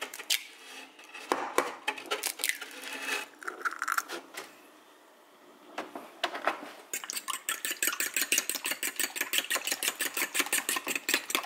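Eggs cracked into a ceramic bowl: a few sharp taps and cracks in the first four seconds. After a short lull, from about seven seconds in, eggs and milk are whisked in the bowl, a rapid, even clicking of the utensil against the bowl's side.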